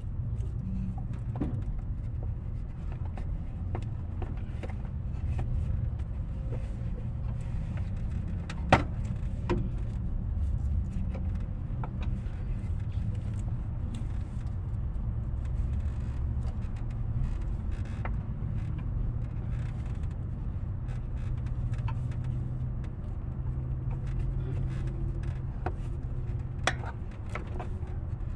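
Steady low rumble in the background with a few sharp metallic clicks of a small hand wrench working on the bolts of a Honda Pilot's coolant connecting pipe: one louder clack about nine seconds in and two close together near the end.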